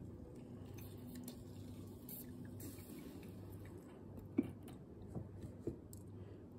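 Aeropress Go plunger being pushed down slowly against resistance from milk powder clogging the filter. The rubber seal gives soft friction noise and three short squeaks in the last couple of seconds, the first the loudest.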